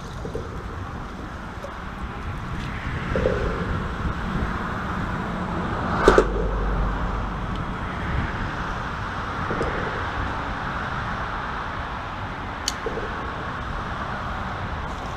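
Steady road-traffic rumble from vehicles crossing the bridge overhead, with one sharp knock about six seconds in.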